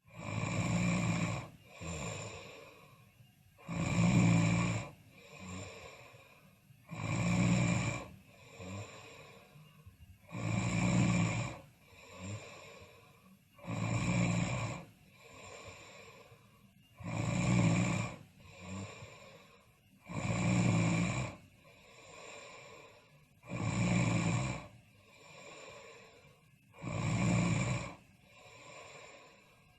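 Snoring in a steady rhythm: each breath gives a loud snore followed by a shorter, softer one, about once every three and a half seconds, nine times over.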